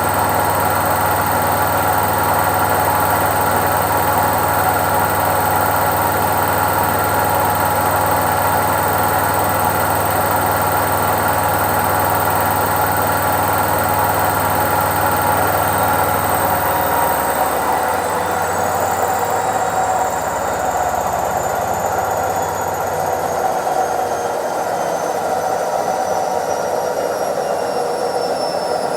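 Indesit IWC71252 washing machine on its spin cycle: the drum spinning at speed with a steady motor whine over a low hum. A little past halfway the hum drops away and the whine starts to fall in pitch as the spin winds down.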